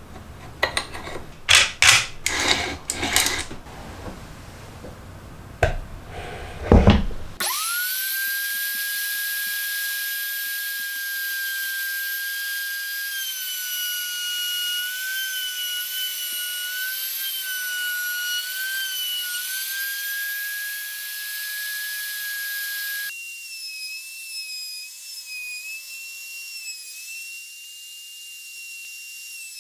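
Knocks and clicks of the wooden jig and small metal parts being handled, then about seven seconds in a Makita M373 trim router is switched on, its whine rising quickly to a steady high pitch. The pitch sags and wavers slightly midway, and later the whine abruptly becomes quieter at a different pitch.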